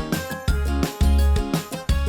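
Upbeat background music: bass notes starting and stopping on a beat, with light, plucked-sounding melody notes above.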